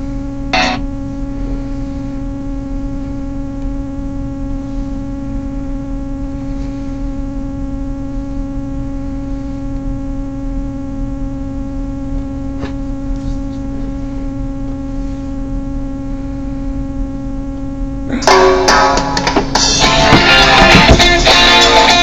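A steady, even humming drone with a clear pitch. About eighteen seconds in, rock music with guitars comes back in loudly.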